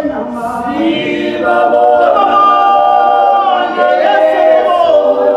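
Voices singing together without instruments, a cappella, with long held notes. The singing comes from the performers on stage.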